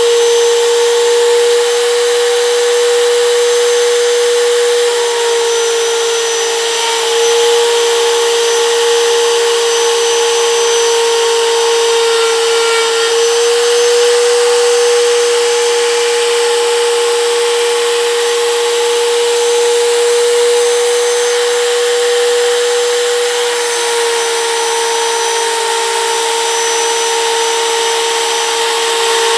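Compact router running at high speed with a steady high whine while its bit cuts a radius into a wooden block; the pitch dips slightly a few times as it cuts.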